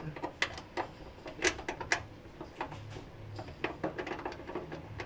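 Light, irregular metallic clicks and taps as a steel bonnet-strut bracket is held against the underside of a car bonnet and its first bolt is started by hand.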